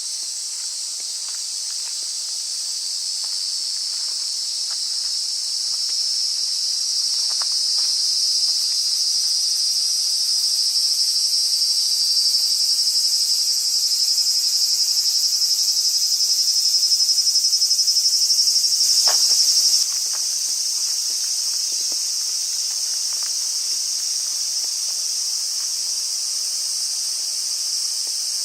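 Steady high-pitched insect chorus that grows gradually louder, then drops suddenly about two-thirds of the way through and carries on more softly. A few faint ticks sound beneath it.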